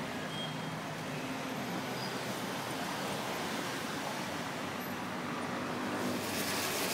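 Steady city street traffic noise: cars, vans and scooters running by in a continuous wash of engine and tyre sound, with a brief louder hiss about six and a half seconds in.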